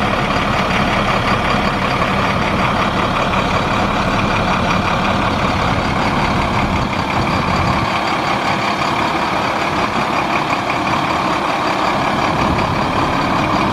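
International MaxxForce 9 9.3 L inline-six turbo diesel engine of a dump truck running steadily.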